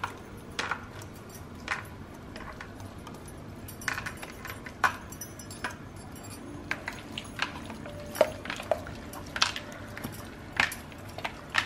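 Irregular light metallic clinks, a dozen or more spread through, from metal bangles and a spoon against a steel blender jar as ground masala paste is scraped out and mixed by hand into raw mutton pieces.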